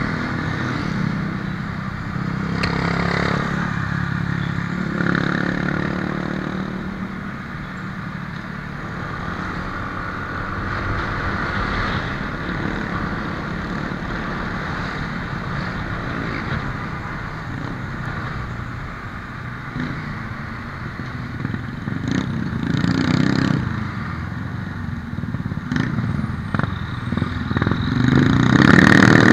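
Motorcycle riding through town traffic, heard from the rider's Yamaha scooter: its engine running under steady road noise, with other motorcycles and cars close by. It gets louder near the end.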